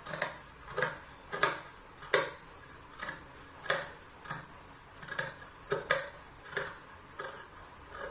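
Large tailor's shears cutting through folded fabric: a steady run of crisp snips, about one every two-thirds of a second, as the blades close on the cloth.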